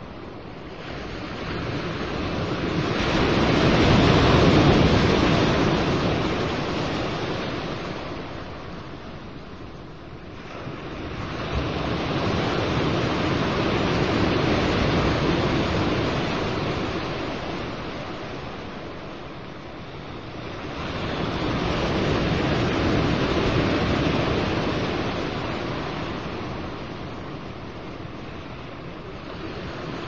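Sea waves breaking and washing up on a shore, swelling and ebbing in three slow surges about ten seconds apart.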